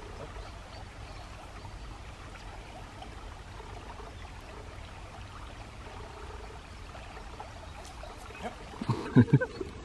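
Steady, soft flow of a shallow stream over a gravel bed. About nine seconds in, a short, loud burst of a person's voice breaks over the water sound.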